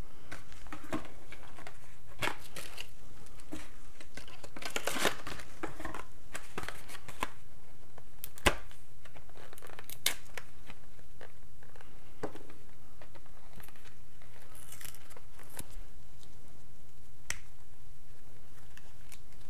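Plastic blister packaging of an SD card being pried, torn and crinkled open by hand, with scattered sharp clicks and snaps; the loudest snap comes about eight and a half seconds in. A steady low hum sits underneath.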